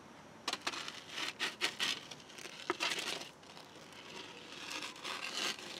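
Wooden bread peel scraping and knocking against the clay floor and mouth of a cob oven as loaves are shifted around. The sound comes as irregular scrapes, rustles and small clicks in two busy spells.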